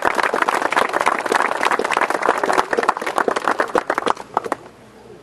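Crowd applauding, a dense patter of many hands clapping that dies away about four and a half seconds in.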